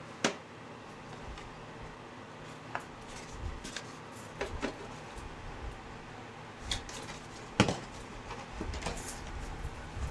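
Plastic rocker panel (door sill) trim being pressed into place by hand, giving a scattered series of short clicks and knocks as its clips snap in and the panel seats, the loudest about three-quarters of the way through.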